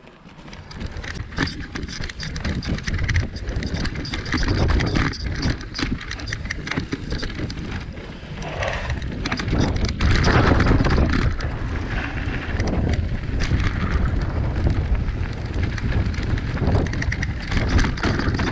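Mountain bike riding fast down a dirt trail: knobbly tyres rumbling over dirt and roots, with many short rattles and knocks from the bike over the bumps and wind on the microphone. It gets louder about ten seconds in, on a steeper, rougher stretch.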